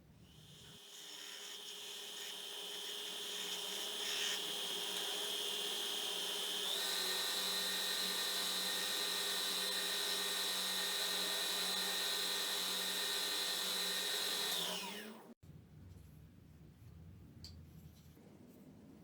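Electric power-tool motor running with a steady whine, stepping up in speed about seven seconds in, then switched off and quickly winding down about fifteen seconds in; a few faint clicks follow.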